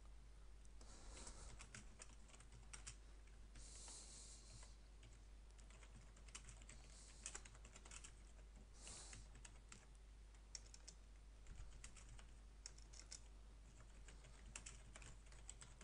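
Faint typing on a computer keyboard: irregular keystrokes as a short message is typed out.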